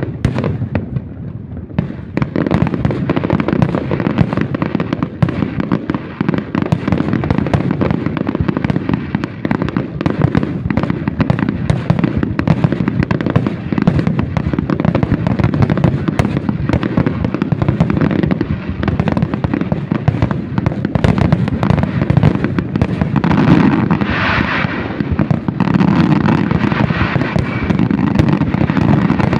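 Loud fireworks display: a dense, unbroken barrage of overlapping bangs that thickens about two seconds in.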